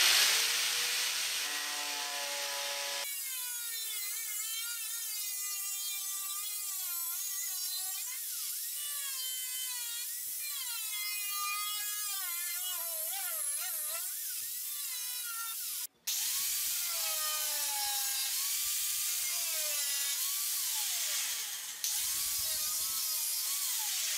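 Angle grinder with a thin 2 mm cutting disc cutting through a rusted steel car body panel: a hiss of cutting under a whine that wavers up and down in pitch as the disc bites. The sound drops out for a moment about two-thirds of the way through, then carries on.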